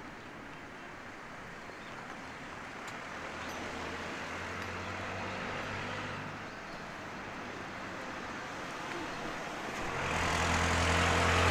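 Motor vehicles passing on a road: an engine hum swells and fades about four to six seconds in, and a louder vehicle approaches near the end.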